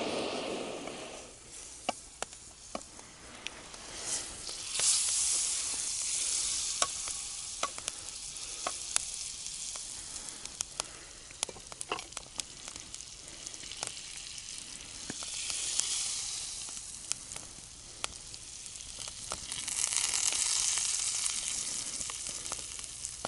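Eggplant slices sizzling in a small frying pan held over an open wood fire, with many sharp pops and crackles. The sizzle swells twice, about five seconds in and again near the end. A louder low rushing fades out in the first second or two.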